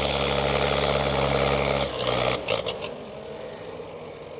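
Tractor engine running steadily while hauling a trailer heavily loaded with sugarcane. About two seconds in the steady engine note drops off and the sound turns quieter, with a few short knocks.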